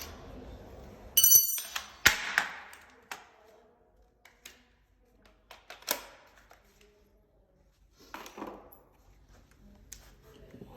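Small metal lock hardware being handled: a ringing metallic clink, then a sharper knock, followed by a few lighter ticks and a soft rustle, with quiet gaps between them.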